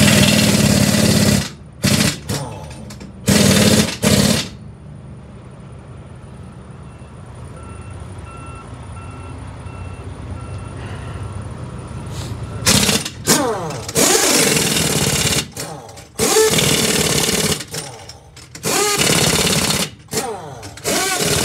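Heavy-duty pneumatic impact wrench hammering on the lug nuts of a semi-trailer wheel in repeated bursts of one to three seconds. The wrench falls silent for several seconds in the middle, then resumes in a string of further bursts.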